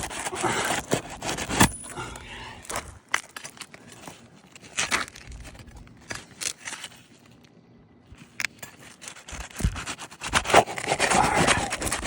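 Laminated roof shingles being pried and pulled loose: irregular scraping and crackling as the shingle tears free, loud at first, sparse and quiet in the middle, then loud again near the end.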